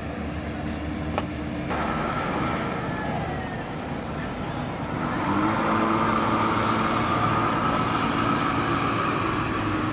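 The passenger ship KM Glory Mary sounds a long, steady horn blast from about halfway in as it leaves port, over a low engine drone.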